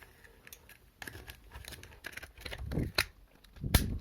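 Plastic housing of a push-button lamp switch being handled and pried apart: scattered small clicks and scrapes, a louder scuffle about three quarters of the way through, and one sharp click near the end.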